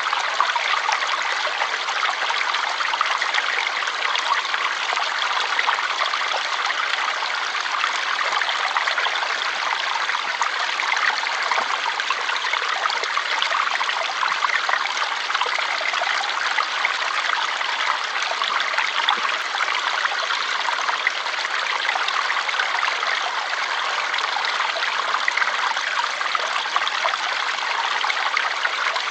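Stream water flowing and trickling in a steady, even rush with fine splashing detail.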